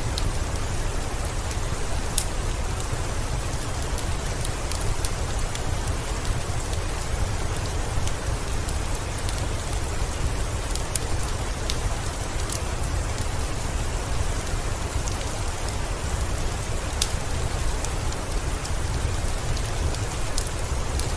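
Steady heavy rain with a deep low rumble, and scattered sharp crackles and pops from a wood fire in a fireplace.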